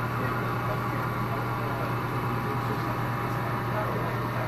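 HO-scale model freight train running over the track: a steady low hum with a rolling rumble.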